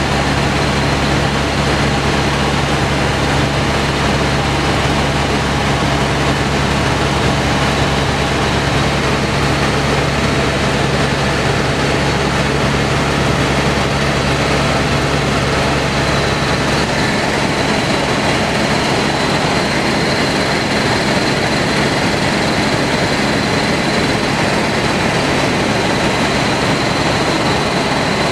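Helicopter in flight: the steady, loud drone of its engine and rotors, with a constant thin high whine above it. The deepest rumble thins out about two-thirds of the way through.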